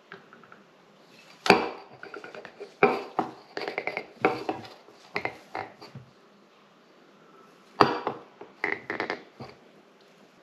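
Metal clinks and knocks as a folding camping stove and its gas canister are handled and set against a granite countertop, in scattered bursts with the loudest knocks about a second and a half in and near eight seconds.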